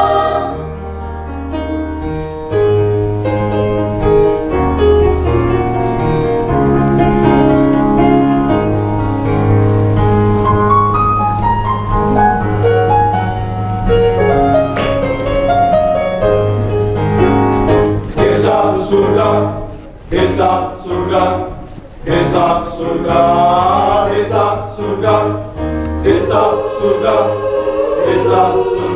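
Mixed choir singing in parts, over long held low notes. Past the middle the singing turns into short, clipped phrases broken by two brief pauses.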